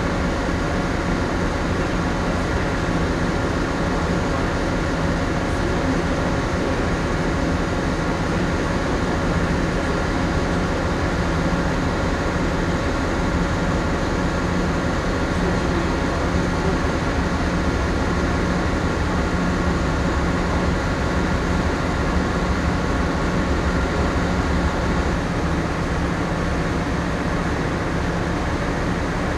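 Steady mechanical hum of a moored ship's onboard machinery and ventilation, heard inside the ship, with several steady tones that do not change.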